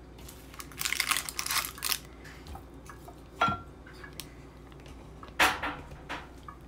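Metal fork and serving utensil scraping and clinking against a baking dish as baked breaded chicken pieces are lifted. There is a burst of scraping and clattering about a second in, then single sharp clinks about three and a half and five and a half seconds in.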